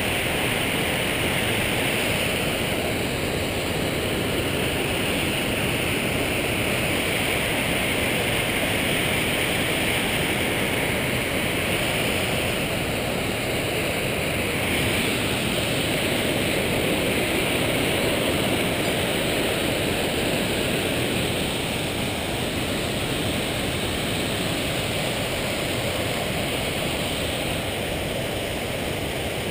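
A creek waterfall, its whitewater rushing steadily.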